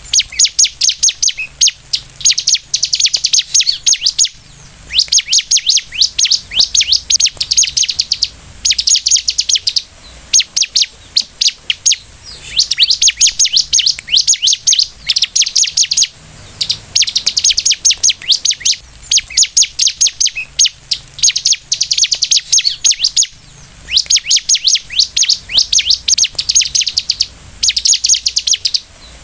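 Bar-winged prinia (ciblek) singing vigorously in repeated bursts of rapid, high chirps. Each burst lasts a second or two, with short pauses between them.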